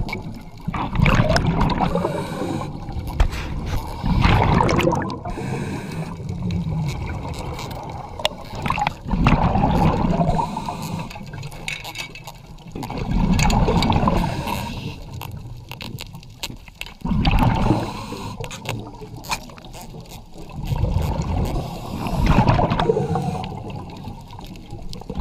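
Muffled underwater water noise, gurgling and swelling in surges about every four seconds.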